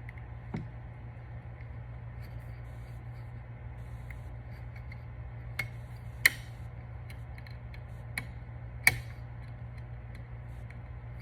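Several sharp, light clicks and ticks of a small hand tool prying at a spring on a caliper handle, over a steady low hum.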